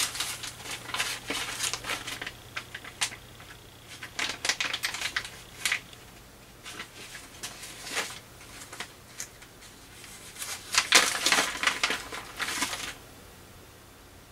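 Small electronic parts clicking and rattling in short bursts as they are rummaged through by hand, loudest near the end, stopping about thirteen seconds in.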